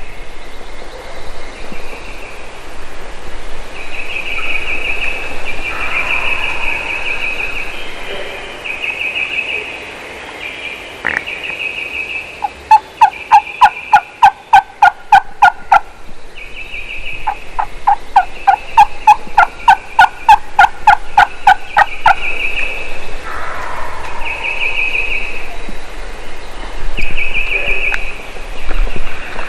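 Wild turkeys calling: short fluttering calls repeat throughout, and about halfway in there are two loud runs of evenly spaced yelps, about four a second, each lasting a few seconds.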